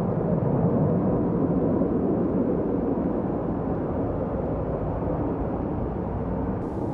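Jet noise from a Hawker Siddeley Nimrod's four Rolls-Royce Spey turbofans in flight: a steady, even sound that eases off slightly.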